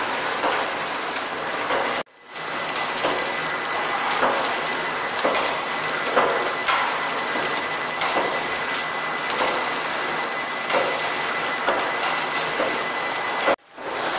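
Pillow-type flow packing machine running as it wraps face masks: a steady mechanical whir and hiss with sharp clacks a little over a second apart, in step with its 45 bags a minute. The sound breaks off abruptly twice, about 2 s in and near the end.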